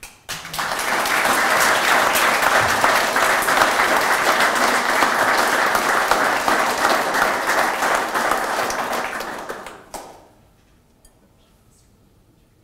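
Audience applauding: the clapping starts about half a second in, holds steady and fairly loud for about nine seconds, then dies away around ten seconds in.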